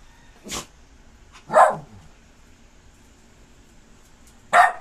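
A dog barking three times, single sharp barks spaced out, the first one softer.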